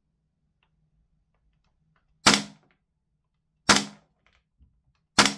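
KWA Lithgow Arms F90 gas blowback airsoft rifle on propane firing three single semi-auto shots, each a short sharp report, about a second and a half apart.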